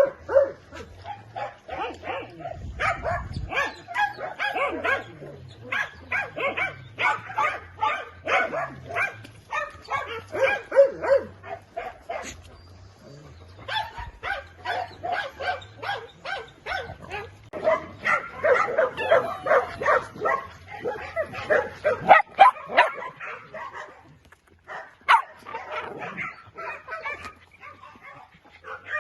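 A dog barking over and over in quick runs of short barks mixed with yips, easing off briefly about twelve seconds in and again near the end.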